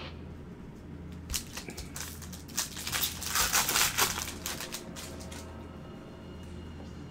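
Crinkling and crumpling of a trading-card pack wrapper being torn open and handled: a cluster of rustles from about a second in, loudest near the middle, dying away about five seconds in.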